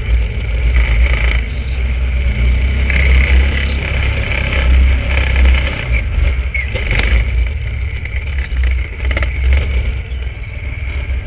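Vintage snowmobile's two-stroke engine running under way, the pitch and loudness rising and falling as the sled travels over snow.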